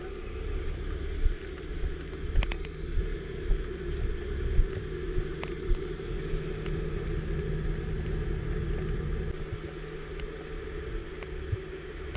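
Heavy wrecker's engine running steadily with a constant hum while its hydraulic boom lifts a load, with a few sharp clicks.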